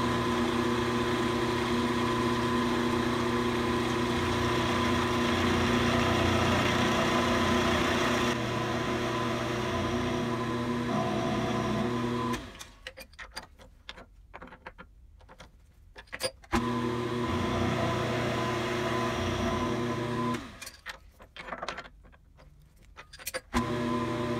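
Milling machine spindle running with an end mill cutting the flats of a square bolt head: a steady hum with several held tones. The running drops away twice for a few seconds, leaving scattered clicks and knocks.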